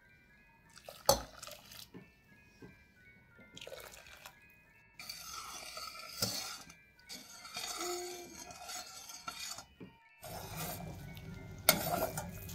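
Metal utensils clinking and scraping against dishes, with a sharp clink about a second in and another near the end, and a stretch of scraping in the middle. Soft background music with a chiming melody plays underneath.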